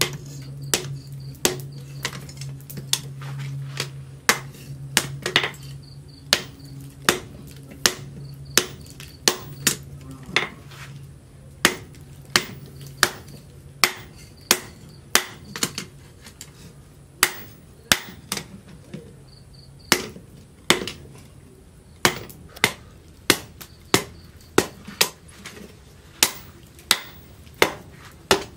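Hand hammer forging a red-hot steel machete blade cut from a sprocket on a steel post anvil: steady blows, about one and a half a second, each a sharp ringing clang. A low steady hum underneath stops about two-thirds of the way through.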